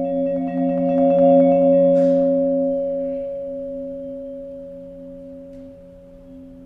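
Chamber ensemble sustaining long, overlapping held tones that slowly die away, with a short noisy percussive swish about two seconds in.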